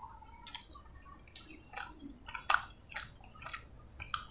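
Soft, wet eating sounds: fingers squishing curry-soaked parotta and chewing, heard as a scatter of short smacks and clicks that come more often in the second half.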